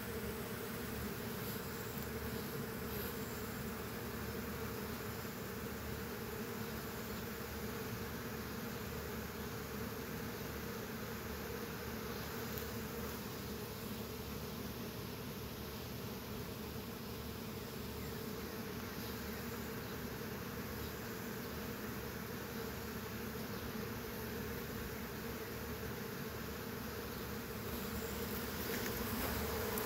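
A honey bee swarm buzzing as many bees fly about while moving in under an old hive cover: a steady hum that grows louder near the end.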